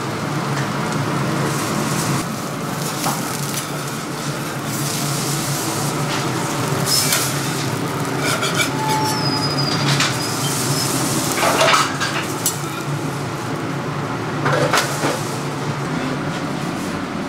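Busy restaurant kitchen noise: a steady low hum under a constant hiss, with scattered clinks and clatter of utensils and dishes, a few louder ones about 7, 10, 12 and 15 seconds in.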